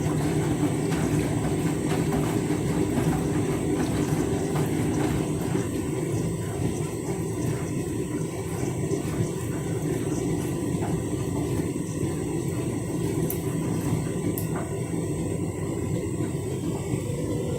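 Candy washing machine running steadily through its rinse-and-spin programme, a constant mechanical rumble with a steady hum.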